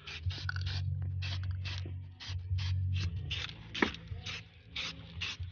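Aerosol spray-paint can hissing in short, quick puffs, about three a second, laying a light coat of paint on a motorcycle mag wheel rather than one thick spray that would leave droplets. A low steady hum runs underneath.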